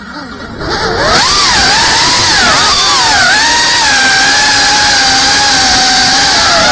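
BetaFPV CineLog 35 cinewhoop drone's brushless motors and ducted propellers whining. The pitch dips and rises with the throttle, swelling louder about a second in, then holds a nearly steady pitch from about three seconds in.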